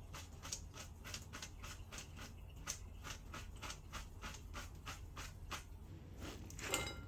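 Rapid, regular kitchen scraping strokes, about three a second, ending with a brief ringing clink near the end.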